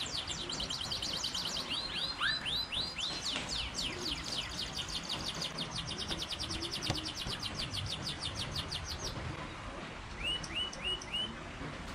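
Songbirds singing fast trills of rapidly repeated high notes, which stop about nine seconds in, followed by a few short separate chirps near the end, over a steady low rush of background noise. A single sharp knock sounds about seven seconds in.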